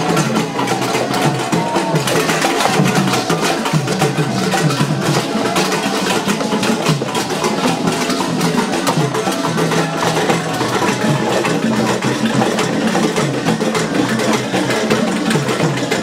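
Dance music driven by drums and a sharp, clacking wood-block-like beat, dense and steady without a break.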